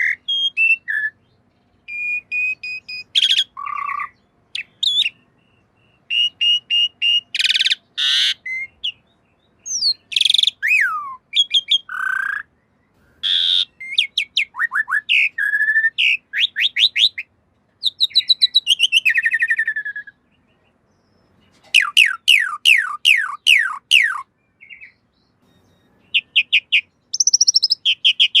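Asian pied starling (jalak suren) singing a varied song of whistled notes, harsh rasping notes and quick runs of falling chirps, broken by short pauses.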